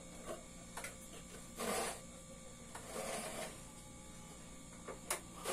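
Coconut half scraped against a stool-mounted coconut grater: two short scraping strokes a little over a second apart, with a few light knocks.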